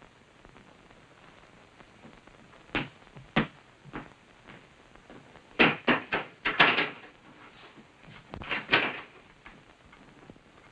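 Three footsteps, then clacks and knocks of a wooden door's latch being worked and the door pulled open.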